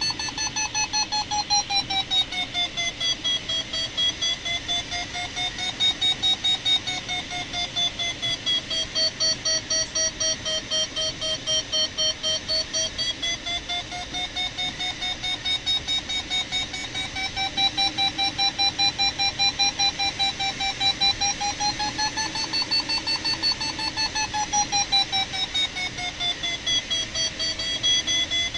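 A glider's audio variometer beeping rapidly, several beeps a second, its pitch rising and falling slowly every few seconds. The beeping tone signals climb, its pitch following the strength of the lift as the glider circles in a thermal.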